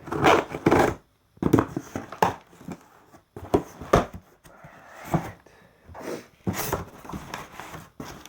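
A sneaker box and its packaging being opened by hand: an irregular run of short rustles, scrapes and knocks of cardboard and paper.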